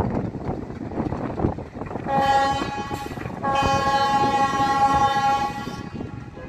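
Diesel locomotive horn sounding twice: a short blast about two seconds in, then a longer blast of about two seconds. It sounds over the rumble of the train's engine and wheels, which eases near the end.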